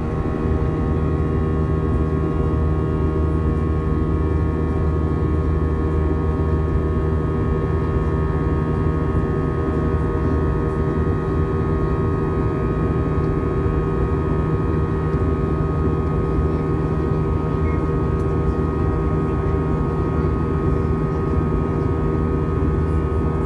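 Airbus A320 jet engines and airflow heard from inside the passenger cabin in flight: a loud, steady drone with several steady hum tones. It grows a little louder in the first second, then holds level.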